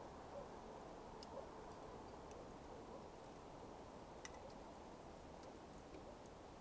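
Smouldering coals burning with a faint steady hiss and a few sparse, sharp crackling ticks, the clearest about four seconds in.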